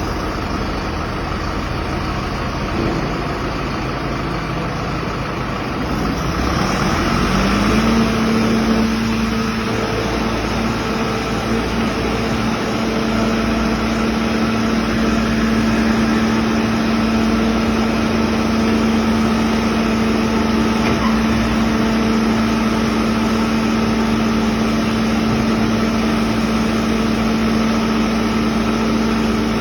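Backhoe loader's diesel engine running. About seven seconds in, it speeds up with a rising whine and then holds steady at the higher speed.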